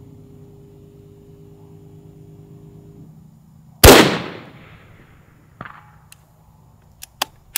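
Single unsuppressed shot from a Desert Tech SRS A2 bullpup bolt-action rifle in 6.5 Creedmoor, about four seconds in, ringing out for about a second. A fainter knock follows a second and a half later, then a few sharp metallic clicks near the end as the bolt is worked.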